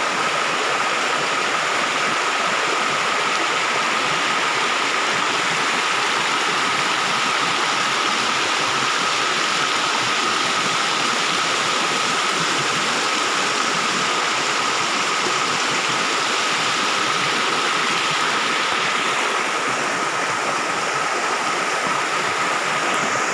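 Waterfall: a steady, unbroken rush of falling water, with a thin steady high tone running under it.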